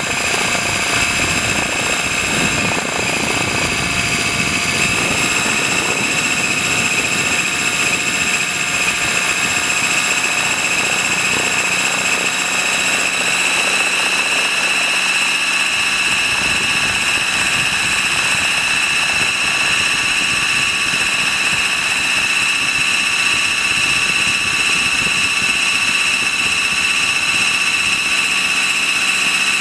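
Trex 600 RC helicopter heard from a camera mounted on its own landing skid: a steady high-pitched whine from its power plant and drivetrain over the rush of the rotors, with more low rumble and buffeting in the first half.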